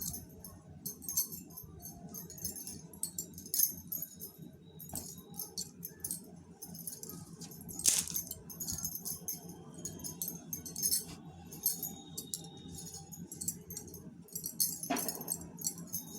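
Light jingling and clinking in quick, repeated clusters, over a steady low hum.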